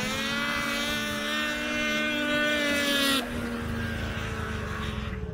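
Two snowmobiles launching in a drag race, their engines revving up in a rising whine at full throttle. The whine is loudest about three seconds in, then drops off sharply to a lower engine drone as the sleds pull away down the track.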